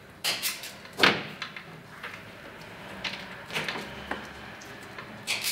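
Hand tools snipping and clicking on the end of a 10 amp electrical cable as it is cut and readied for stripping: a string of short, sharp clicks and scrapes, the loudest about a second in.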